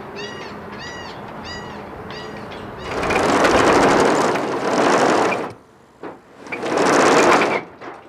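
A short, high, rising-and-falling call repeats about every two-thirds of a second, like a bird. About three seconds in, steel anchor chain rattles and clatters loudly along a wooden dock in two long bursts.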